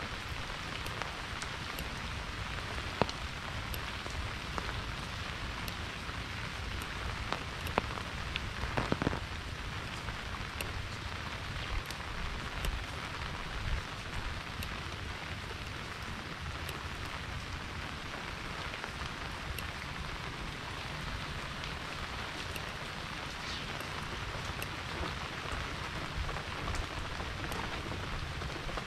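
Steady monsoon rain falling, a constant hiss with many sharp individual drop hits close by; a few louder drop taps about three seconds in and around eight to nine seconds.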